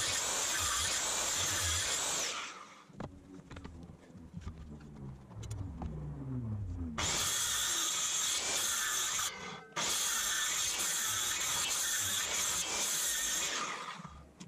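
Power drill boring into wood in three long bursts: the first stops about two seconds in, and it starts again around seven seconds and once more around ten seconds. Between bursts a fainter whine slides in pitch.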